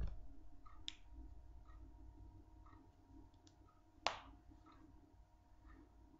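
Faint room tone with a steady hum, a soft tick about once a second, and two sharp clicks, one about a second in and a louder one about four seconds in.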